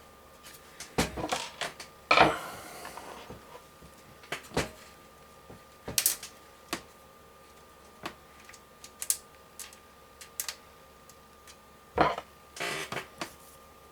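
Irregular clicks, taps and knocks of a case fan and its screws being handled and screwed back into a PC case, with a louder knock about two seconds in and another near the end.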